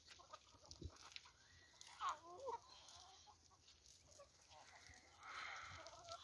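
Chickens clucking softly, with a short run of louder clucks about two seconds in.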